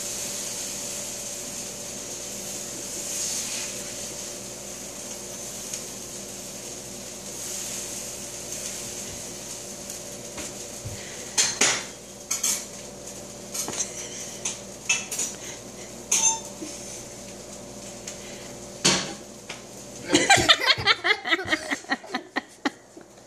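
A metal utensil clinking and scraping against a pan on a kitchen stove, a scattered series of sharp clinks over several seconds, over a steady hum. Near the end, a short loud burst of a child's voice.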